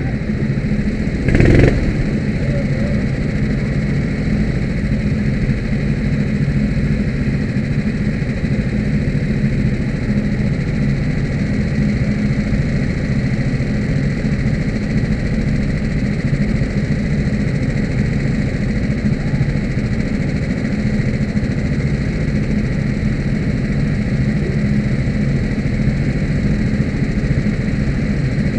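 Kart engine running at a steady speed, heard from the kart's onboard camera. A brief louder burst of noise comes about a second and a half in.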